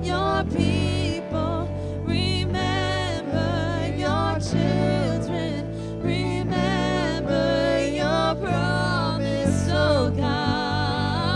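A woman singing a worship song into a microphone, backed by a live band of keyboard, electric guitar and drums; her melody wavers with vibrato over a steady bass line.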